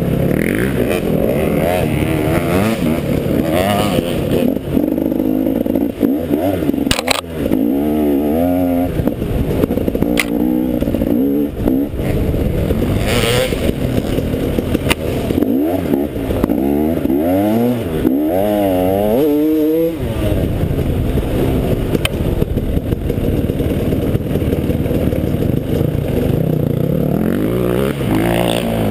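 Enduro dirt bike engine being ridden, revving up and down over and over as the throttle opens and closes. A few sharp knocks and clatter cut through it.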